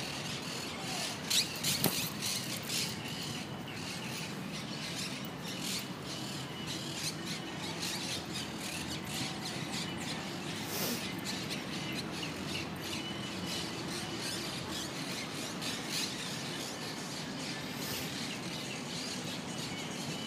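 Outdoor park ambience: birds calling, with many short, high calls scattered throughout over a steady low background noise.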